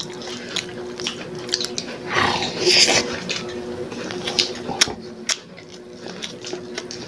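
Close-up eating sounds: several people chewing rice and dried fish with lip smacks and small wet clicks, and a louder breathy sound about two seconds in. A steady low hum runs underneath.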